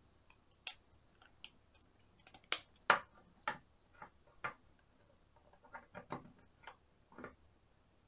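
Plastic pop-it jigsaw pieces clicking and tapping as they are handled, fitted together and set down on a table: an irregular scatter of sharp clicks, loudest about three seconds in.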